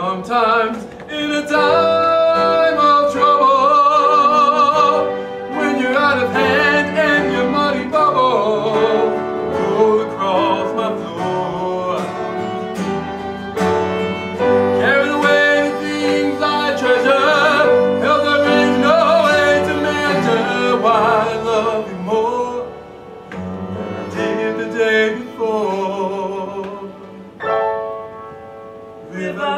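Men singing a slow ballad duet with vibrato over instrumental accompaniment, in a live stage musical performance; the music softens in the last few seconds.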